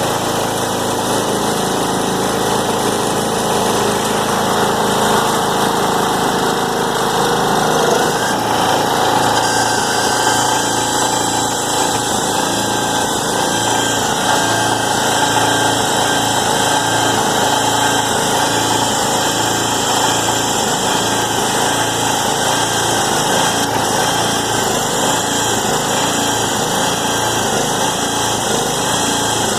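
Recycling baler's motor running steadily, its note shifting about eight seconds in and then holding.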